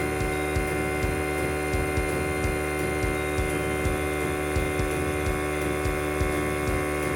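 Electric air compressor running steadily: a constant motor hum with a regular pulse a few times a second.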